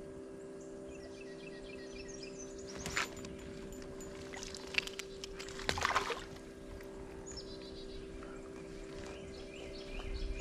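A steady low hum from the boat with birds chirping, broken by two short rushing, splashy noises about three seconds and six seconds in.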